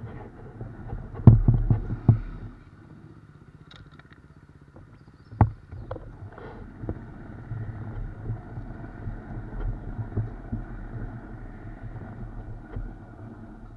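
Supermoto motorcycle engine running at low revs while ridden slowly. There is a cluster of sharp knocks about a second in and another single loud knock a little after five seconds.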